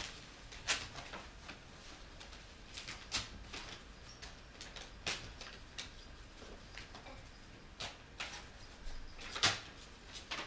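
Gift wrapping paper rustling and tearing in brief scattered bursts, the loudest near the end.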